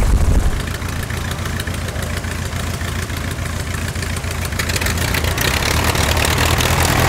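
Engine of a de Havilland Tiger Moth biplane running at idle, a steady low drone that grows a little louder and rougher in the last couple of seconds.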